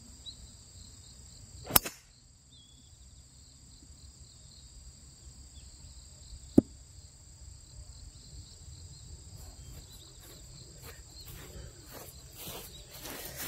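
A fairway wood striking a golf ball, a single sharp crack about two seconds in, followed a few seconds later by a shorter, fainter click. A steady high insect drone runs underneath, and rustling footsteps on grass start near the end.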